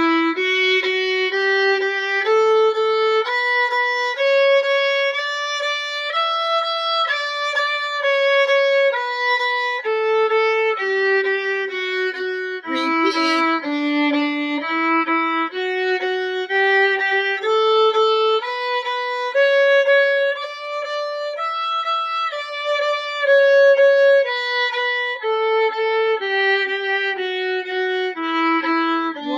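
Solo violin playing a bowing exercise in eighth notes: a steady run of bowed notes stepping up and down in pitch like a scale.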